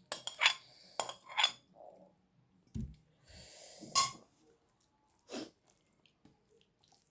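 Close-up eating sounds: a few sharp clicks and clinks of utensils against a plate, a breathy exhale about three seconds in, and a louder clink with a short ring near four seconds.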